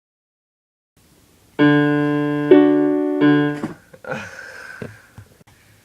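Keyboard piano playing three sustained chords that start after about a second of silence and break off about halfway through. A few faint knocks and some rustle follow.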